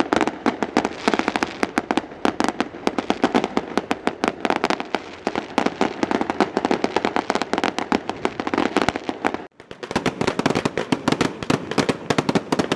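Fireworks and firecrackers going off in a dense, rapid run of sharp cracks, many a second, broken by a short gap about nine and a half seconds in.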